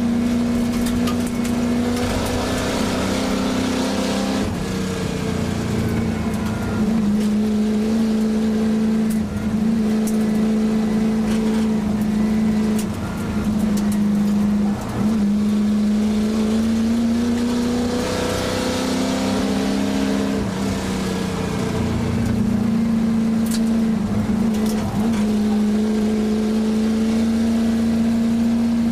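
1967 Shelby GT350's 289 V8 racing under hard throttle, heard from inside the cabin, its pitch climbing and dropping again and again through gear changes and corners. Tyres hiss on the loose gravel road underneath.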